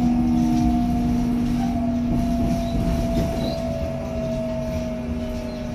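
Seoul Line 4 subway car's Mitsubishi GTO-VVVF traction inverter whining over the rumble of wheels on rail, heard inside the carriage. One tone holds steady while a higher one falls slowly in pitch as the train slows.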